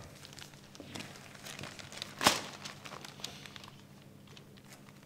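Newspaper pages rustling and crackling as they are handled, with one sharper crackle about two seconds in.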